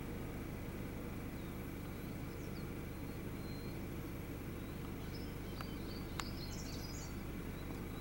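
Steady low rumble of an idling game-drive vehicle engine, with small birds chirping in the bush for a couple of seconds past the middle. Two short clicks come about five and a half and six seconds in.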